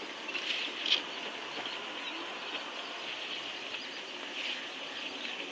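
Outdoor bush ambience with birds chirping over a steady high hiss, slightly stronger about a second in.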